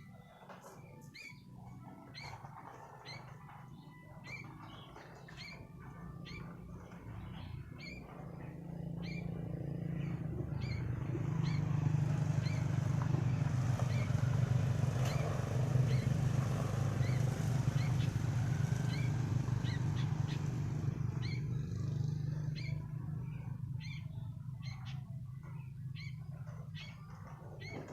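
Sooty-headed bulbul (kutilang) giving a steady series of short, high chirps. A low rumble swells up in the middle and fades away again.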